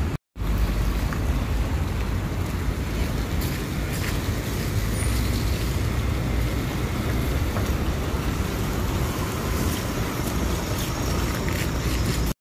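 City street traffic around a bus stop: buses pulling in and idling, with a steady low engine hum under general road noise.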